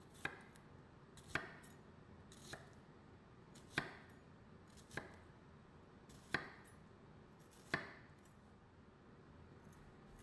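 Chef's knife slicing through a peeled onion and striking a wooden cutting board: seven separate cuts, each a sharp knock, about one every second and a bit.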